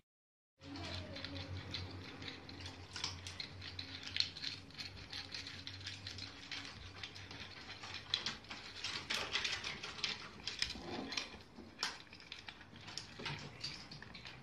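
A raccoon pawing at a wooden toy abacus, its beads clicking and clacking irregularly against each other and the frame.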